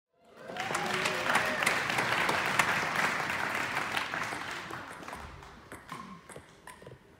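Audience applause: many hands clapping, with a few voices calling out near the start. The applause swells within the first second and dies away over the last few seconds.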